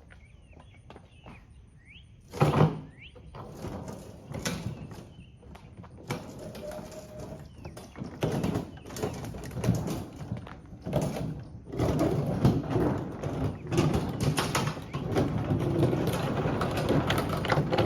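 Faint bird chirps, then a loud thud about two and a half seconds in, followed by a run of knocks, bangs and scraping noise that grows denser and louder.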